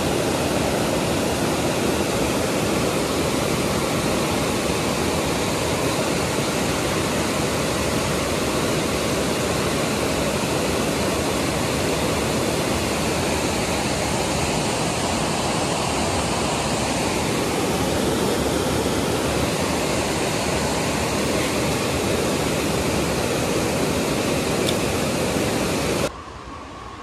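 Waterfall cascading over rocks, a loud, steady rush of water that cuts off suddenly near the end.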